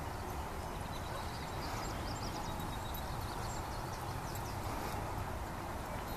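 Steady outdoor background noise with a low rumble, and faint, short high-pitched chirps in the middle stretch.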